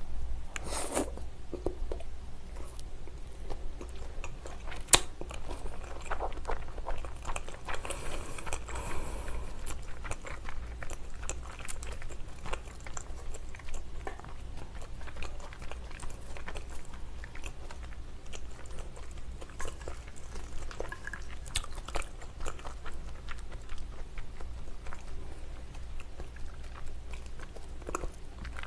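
Close-miked chewing of raw salmon sashimi: wet mouth sounds with many small clicks and smacks, going on steadily.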